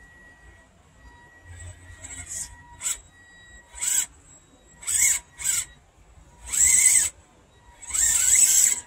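RGT RC crawler's electric motor and gears whining in short bursts of throttle as it crawls up a steep dirt slope. The bursts come a few times, then grow longer, about a second each, near the end. A faint steady high tone hangs between them.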